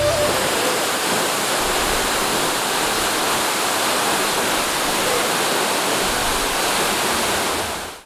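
Steady rush of a tall waterfall pouring into its rocky plunge pool, a dense, even noise of falling water that cuts off at the very end.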